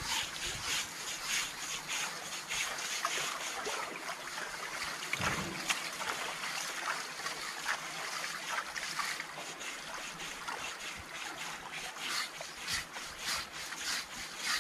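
Water splashing and trickling around an Asian elephant being scrubbed by hand as it stands in a pool, with many short splashing and rubbing strokes. A dull low thump comes about five seconds in.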